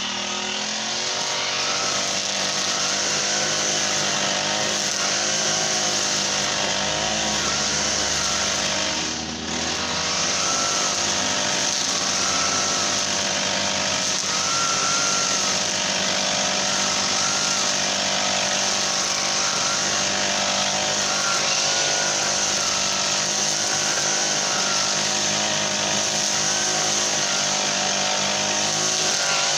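Brush cutter's Honda GX35 four-stroke engine running steadily, its pitch wavering slightly, with a brief drop in level about nine seconds in.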